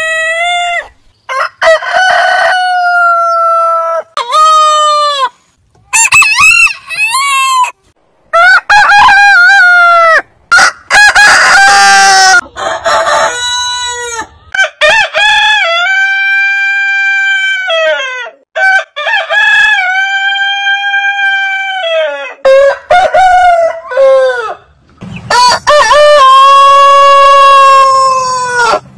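Roosters crowing one after another, about ten crows from several different birds. Some crows are short; others are long and drawn out, held for three to four seconds, the longest near the end.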